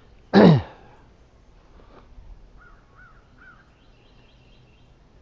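A bird's single loud call about half a second in, sweeping steeply down in pitch; later a few faint chirps of small birds.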